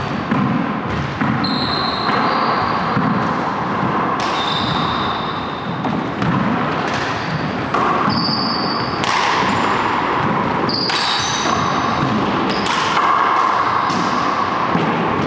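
Racquetball rally in an enclosed court: the ball cracks off racquets and walls again and again, each hit echoing. Short high squeaks of court shoes on the hardwood floor come between the hits.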